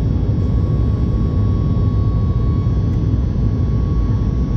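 Airliner's jet engines at takeoff power: a steady, heavy low rumble with a constant whine on top.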